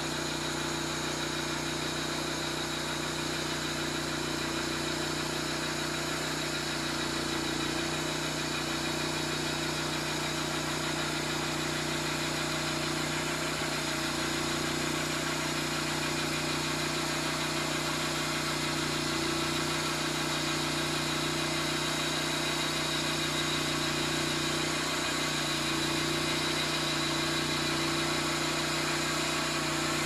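Engine of a Vallee Green Monster Wide portable band sawmill running steadily under load while its band blade cuts through a 48-inch maple log, with a constant hiss of sawing over the engine's drone.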